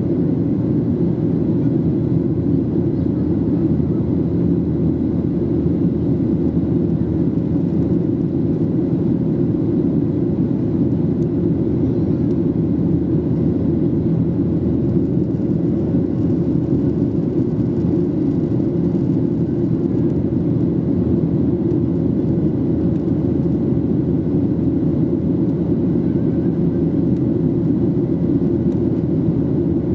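Boeing 737-800 cabin noise: the CFM56-7B engines and airflow make a loud, steady, deep rumble with a faint steady hum above it.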